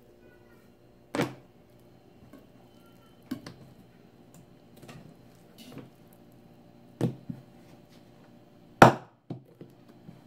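Heavy kitchen knife chopping through a fish's backbone and frame onto a wooden table: four sharp knocks, the loudest about nine seconds in, with softer taps and handling in between.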